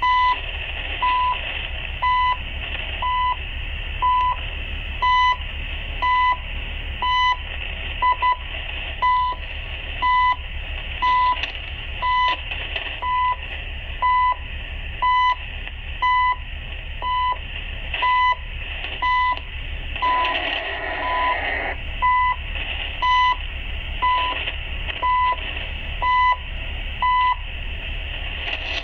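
Time-signal second pulses from the CHU station on 3330 kHz, received in AM on a JRC NCM-2150 MF/HF marine radio: a short beep every second over steady radio static. A clear signal like this can be used to set the ship's clock.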